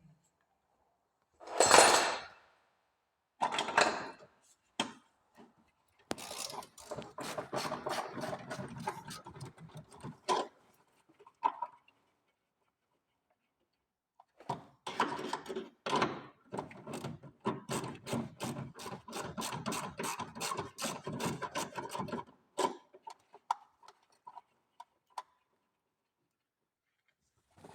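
Ratchet wrench clicking in two long runs of quick clicks, about four a second, as a bolt is turned. A single loud metallic knock comes about two seconds in.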